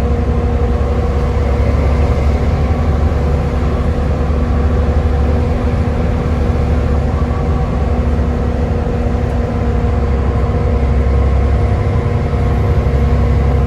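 Volvo B7TL double-decker bus's six-cylinder diesel engine running with a steady, vacuum-cleaner-like hoovering drone and whine over a heavy low rumble, its pitch holding steady.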